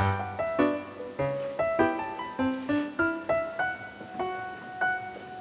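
Background piano music: a melody of struck notes, two or three a second, each ringing out and fading, with low bass notes in the first half.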